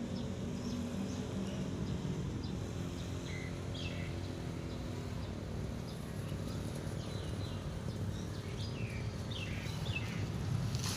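Outdoor ambience: steady low background noise with scattered short, high, falling chirps of birds, a few around the middle and a cluster near the end.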